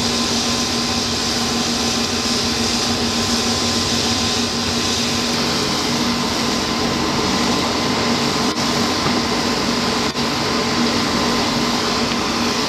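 Military LCAC hovercraft's gas turbine engines and lift fans running steadily: a loud, even whine over a constant hum.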